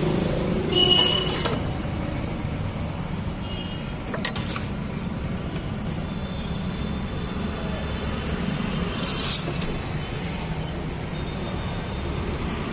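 Steady street traffic noise, with a few brief clatters of steel utensils about a second in, around four seconds and near nine seconds.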